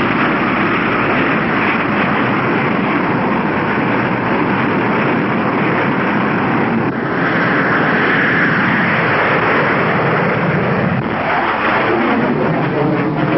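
Jet engines running at full power during a jet aircraft's takeoff, a loud steady rushing noise. A higher hiss swells about seven seconds in and fades again after nine seconds.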